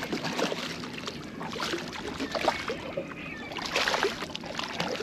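Water splashing and sloshing around a small fishing boat, with many irregular knocks and clicks and a few louder splashes about two and four seconds in.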